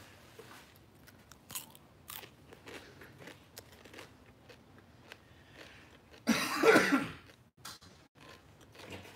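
Crunchy chewing close to a phone's microphone: scattered small crunches and clicks. About six seconds in comes a loud short throaty sound from a person, like a cough.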